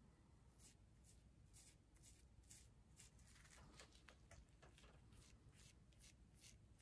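Faint, quick scratchy strokes, about three a second, of a hair-dye tint brush being worked through dry, curly natural hair as the dye is painted on.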